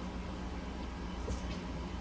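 Steady low background hum and hiss, with one faint light click a little over halfway through.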